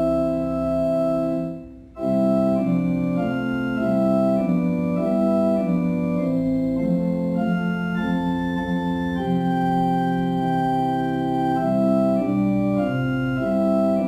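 Organ playing a slow hymn tune in held chords, with a brief break about two seconds in.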